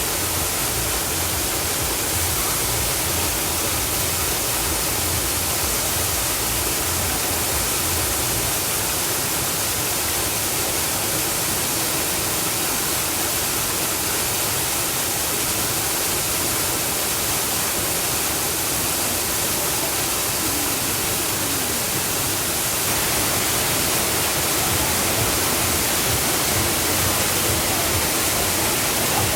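Waterfall's steady rush of falling water, getting a little louder in the last few seconds.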